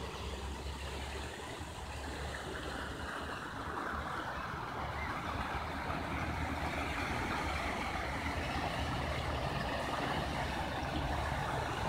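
Water rushing and spilling from an irrigation aqueduct outlet into a river, a steady hiss that grows louder from about four seconds in, over a low steady rumble.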